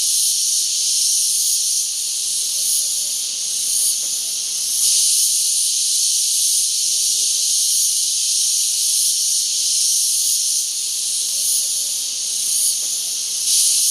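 Loud, steady high-pitched buzzing chorus of cicadas (gangis), swelling briefly about five seconds in and again near the end.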